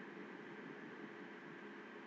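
Boondi, drops of gram-flour batter, sizzling steadily as they deep-fry in hot oil in a kadai.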